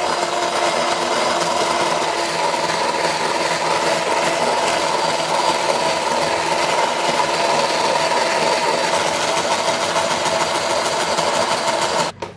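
Electric hand mixer running steadily with a motor whine, its twin beaters whipping instant coffee, sugar and hot water in a plastic cup. The motor cuts off suddenly just before the end.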